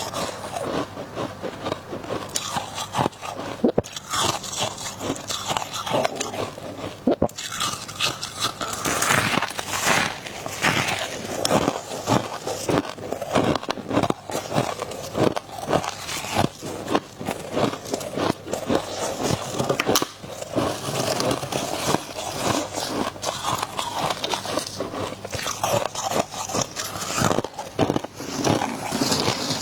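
Ice being bitten and chewed close to the microphone: a dense, unbroken run of crunches and crackles.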